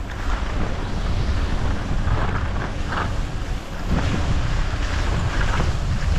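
Wind rushing over the microphone while skiing downhill, with a few brief hissing swishes of skis turning on the snow.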